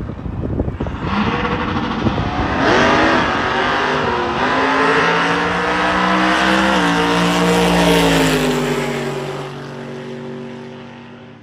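Drag-race car engine launching and accelerating hard down the strip. Its pitch climbs, steps down at gear changes about four and seven seconds in, then the sound fades near the end.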